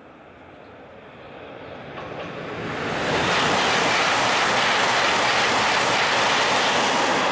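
E5 series Shinkansen coming out of a tunnel hood and passing at high speed. A rushing noise builds over the first three seconds, then holds as a loud, steady rush of air and wheels on rail while the cars go by.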